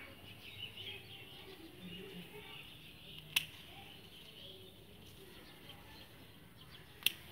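Two sharp snips of small hand scissors cutting chrysanthemum shoots, one about halfway through and one near the end, over faint bird chirping.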